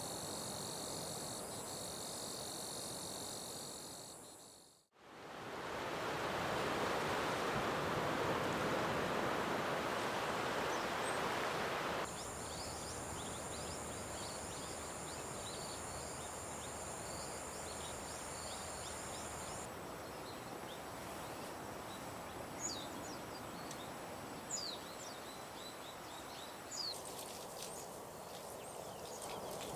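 Outdoor nature sounds in several cut-together takes: high steady insect drone, then a steady rushing noise for several seconds, then the insect drone again, with short bird chirps in the later part.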